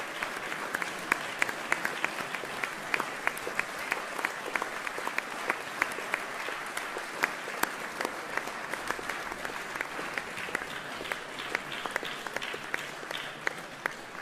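Audience applauding at the end of a concert: dense, steady clapping with a few sharper single claps standing out, thinning slightly near the end.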